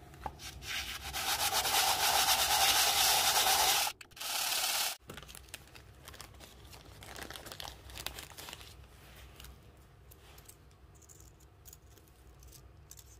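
Machined aluminium adapter plate sanded on abrasive paper laid on a sheet of glass, lapping its mating face flat. The loud sanding lasts about four seconds, stops briefly, then runs for one more second and ends abruptly. After that come quieter rustles and light clicks of small parts being handled.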